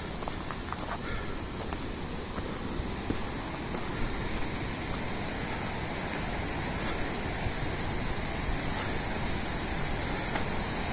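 Steady rushing of a waterfall, growing gradually louder.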